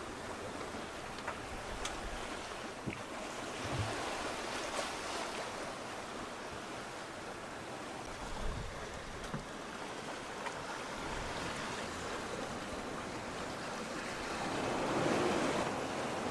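Sea water rushing and splashing along a sailboat's hull as it sails downwind at about six knots, with wind on the microphone and a few light clicks. The rush swells louder near the end.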